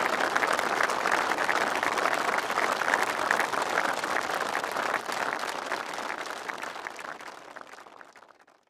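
Audience applauding, a dense patter of many hands clapping that gradually dies away over the last few seconds.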